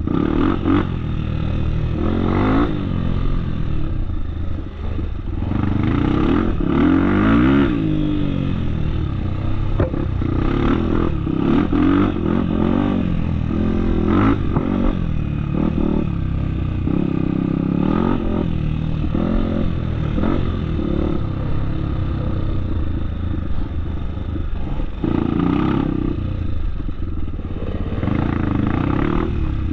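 Trail motorcycle engine running under load, the revs rising and falling again and again, with scattered clattering knocks.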